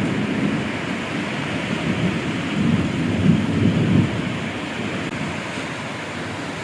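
Steady heavy rain with a low rumble of thunder that swells about halfway through and then fades.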